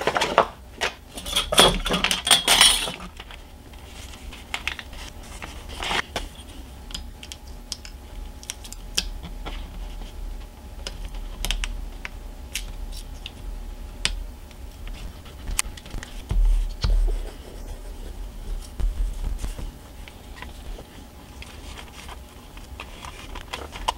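Scattered light clicks and taps of a steel ruler, pencil and small model parts being handled on a cutting mat, with a louder burst of rustling and handling in the first few seconds.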